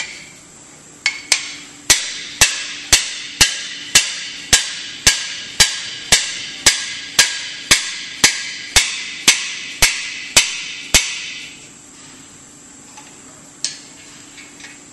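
Hammer blows on a cam bearing installer tool, driving the last cam bearing into a 400 Oldsmobile engine block. About twenty sharp, ringing strikes land at a steady two a second and stop about eleven seconds in, with one more single tap near the end.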